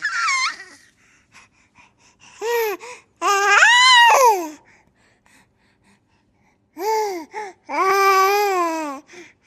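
A baby vocalizing: a short high squeal at the start, then several drawn-out babbling calls that rise and fall in pitch, separated by pauses.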